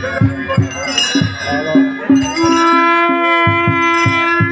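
Ritual drums beating a quick steady rhythm, with bells ringing and voices singing. About halfway in, one long steady note is held for about two seconds over the drumming.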